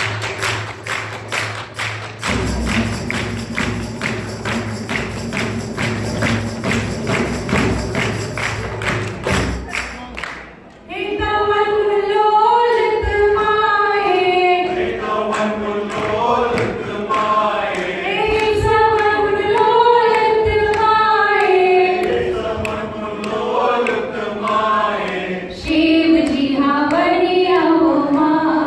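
Live Kashmiri-style folk music. For about the first ten seconds a steady beat of frame drum and hand clapping plays over a low drone. Then women's voices come in singing a melody over the continuing beat.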